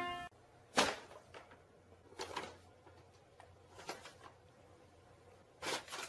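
Four brief soft thumps, about a second and a half apart, with quiet room tone between them.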